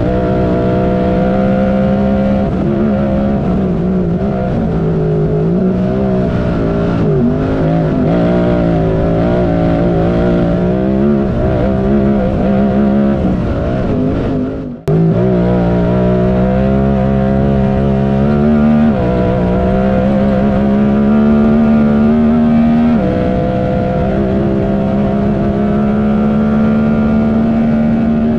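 Honda Talon UTV's parallel-twin engine running hard at a steady high rev, its pitch holding level with a few small step changes. It breaks off abruptly for a moment about halfway and comes straight back.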